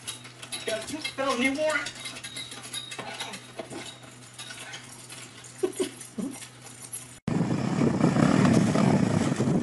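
Faint voices over a steady low hum, then, about seven seconds in, a loud rough noise: a quad bike (ATV) engine running.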